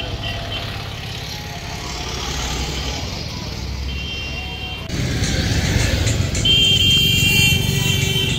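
Road traffic: motorcycles and cars running and passing on a busy town street. About five seconds in, the sound jumps louder, and background music with steady held notes comes in over the traffic.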